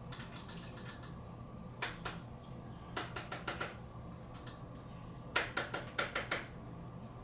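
Sharp taps and knocks in quick clusters of four or five: a small coffee cup or holder being knocked against the trash to empty out the grounds.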